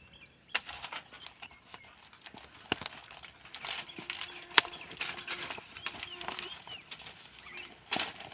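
Hands folding a banana leaf around a chicken on a sheet of aluminium foil: scattered crackles and taps of leaf and foil being handled, with one sharp click about four and a half seconds in.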